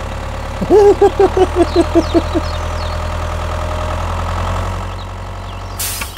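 Tractor engine idling with a steady low hum. About a second in, a quick run of about nine short, loud pitched beeps sounds over it, and a brief hiss comes near the end.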